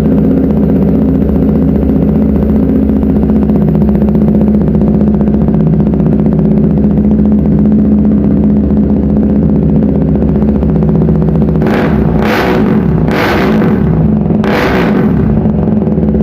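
KTM Duke 390's single-cylinder engine idling steadily through an SC Project full-system exhaust with the catalytic converter deleted, then revved in several short throttle blips near the end.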